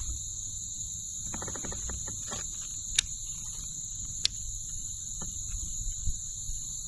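A steady high-pitched insect chorus with a low rumble beneath it, and a fishing reel being handled: a short run of quick clicks about one and a half seconds in, then single sharp clicks about three and four seconds in.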